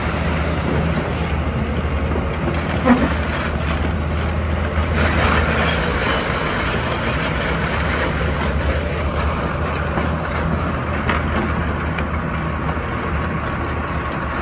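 Caterpillar 320E L crawler excavator's six-cylinder diesel engine running steadily with hydraulic noise as the upper structure slews round. A single sharp clunk about three seconds in.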